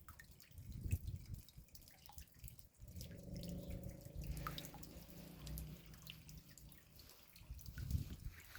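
Raindrops dripping as scattered single drops. A faint low hum with a few steady tones joins in for a few seconds in the middle.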